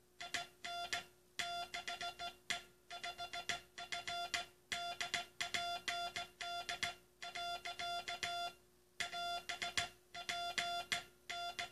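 Morse code (CW) being sent by hand: a single steady beep keyed on and off in dots and dashes. The beeps are grouped into letters and words with short pauses between them, spelling out the U.S. Coast Guard's last Morse code message.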